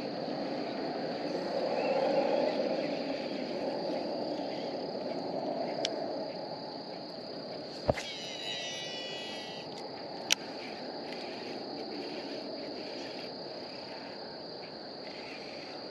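Steady high-pitched insect chorus, a constant buzz. A few sharp clicks come about six, eight and ten seconds in, and a brief whirring follows the click at eight seconds.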